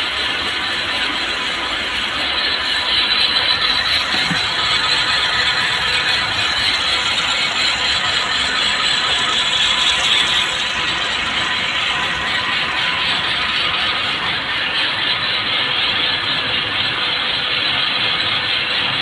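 Cord braiding and winding machines running together: a loud, steady, dense mechanical clatter of many spinning bobbins, gears and chain drives.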